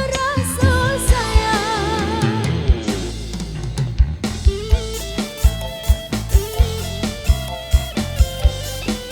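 Live dangdut koplo street band playing: a wavering lead melody over the first couple of seconds, a brief thinner passage, then the drums come back in about four seconds in with a steady beat under guitar and melody.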